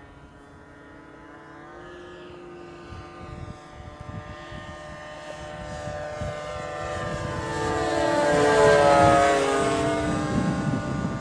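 Twin-engined radio-controlled scale model of a de Havilland DH.88 Comet making a low pass. Its engines and propellers grow steadily louder as it approaches, are loudest about nine seconds in as it goes overhead, then drop in pitch as it moves away.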